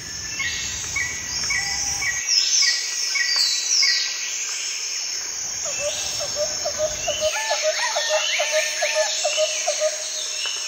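Several wild birds calling over a steady high insect drone in tropical countryside. A short high chirp repeats about twice a second in the first few seconds, mixed with falling whistles. From about the middle on, a lower rapid call repeats about three times a second.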